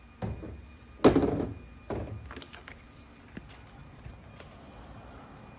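Three dull thunks about a second apart, the loudest about a second in, followed by a faint steady haze.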